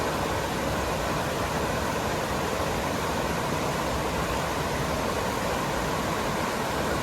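Creek floodwater rushing in a steady, even roar as a flash-flood surge of storm runoff comes down the creek and rises over a small dam.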